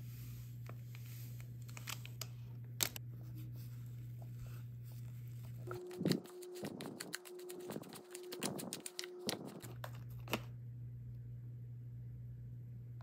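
Small plastic spoon stirring and scraping damp candy rice mix inside a thin plastic tray, in a run of irregular scrapes from about 6 to 9.5 seconds in. Before that there are only faint light taps and one sharper click about 3 seconds in.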